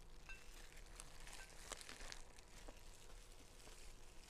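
Faint, scattered crinkles and small clicks as seaweed-wrapped rolls are put together by hand, one pair of hands in thin plastic gloves.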